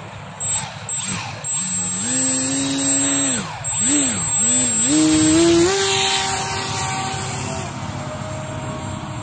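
Electric motor and propeller of a small homemade RC plane whining, the pitch rising and falling with the throttle, dipping twice about four seconds in, then holding higher. The sound eases near the end as the plane flies off.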